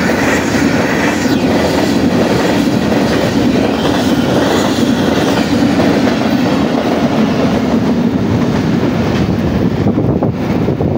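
Goods train of freight wagons rushing past close by at speed, the wheels clattering over the rail joints in a loud, steady rumble. The hiss thins out near the end as the last wagons pull away.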